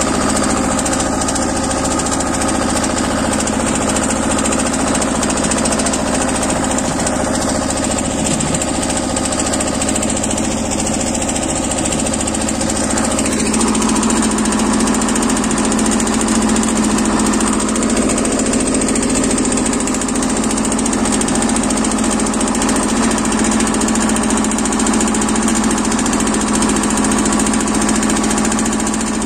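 The Lombardini 5LD 825-2 two-cylinder air-cooled diesel of a BJR F 3800 compact tractor, running steadily while the tractor drives along, heard from the driver's seat. Its note changes a little about halfway through.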